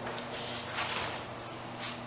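Paper rustling and crinkling as a sheet is handled, in a few short bursts.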